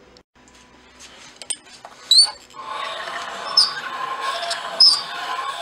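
A three-angle valve-seat cutter cuts into a hardened intake valve seat of a truck diesel cylinder head. There are a few light clicks at first, then from about halfway a steady scraping, ringing squeal of the tool taking metal off the seat, with a sharper squeak about every second and a quarter.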